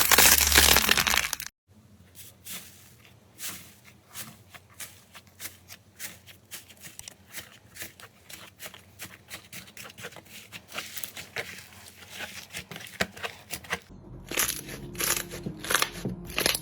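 Slime being squeezed and poked by hand in a series of short clips: a loud crunching at first, then a long run of small, quiet crackles and clicks, with louder crackling again near the end.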